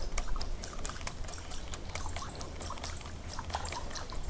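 Light splashing and trickling water from a popper-mouthed zara-style topwater lure being worked on the surface, with many scattered, irregular sharp clicks.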